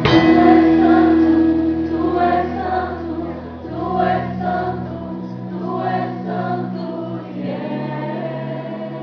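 Christian worship music: a choir singing with instruments, opening on a loud hit and long held chords.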